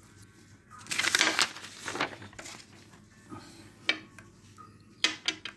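Rustling, crinkling handling noise for about a second and a half, followed by a few sharp clicks near the end.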